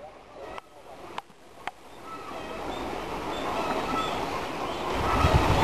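Outdoor background noise on a camera microphone, with a few faint clicks in the first two seconds and a low rumble building near the end.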